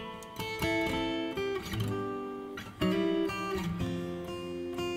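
Background music: an acoustic guitar playing slow plucked chords, each note ringing on as the next begins.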